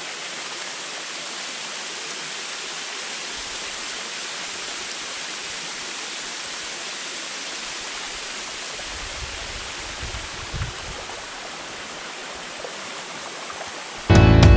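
Steady rush of flowing water, with a few low rumbles about nine to eleven seconds in. Loud background music with guitar cuts in suddenly at the very end.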